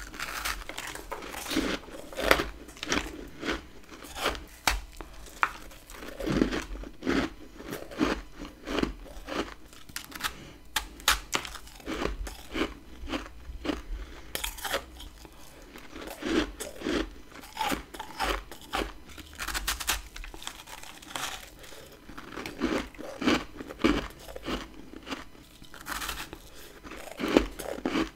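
Bites and chewing of built-up freezer frost, eaten close to the microphone: a quick, irregular run of sharp crunches, several a second.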